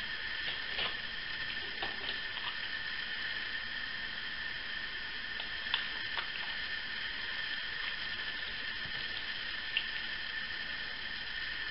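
Steady background hiss with a few faint, short clicks from plastic sheet and a syringe being handled.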